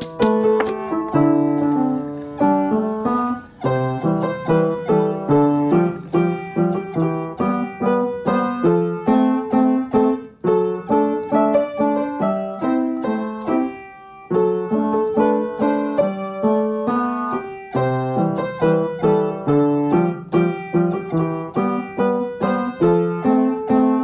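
Background solo piano music, a steady flow of notes. Right at the start, a few sharp taps from a rubber-faced mallet driving a wooden pin into the toy's arm.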